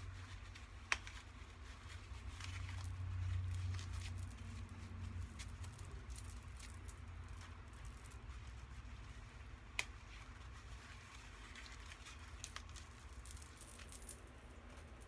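Quiet rustling and scratching of dreadlocks and foam hair rollers being handled and unrolled, with two sharp clicks, about a second in and near ten seconds in.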